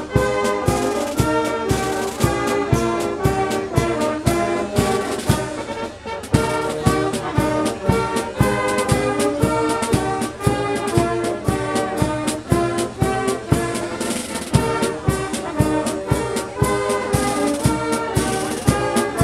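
Outdoor brass band playing a tune on trumpets and trombones over a steady drum beat of about two strokes a second.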